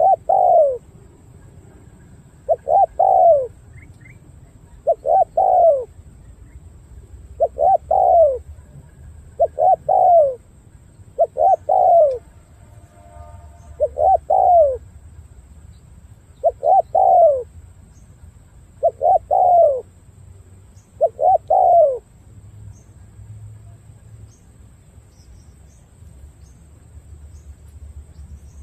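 Spotted dove cooing: a short phrase of two or three falling notes, repeated about every two and a half seconds, ten times over.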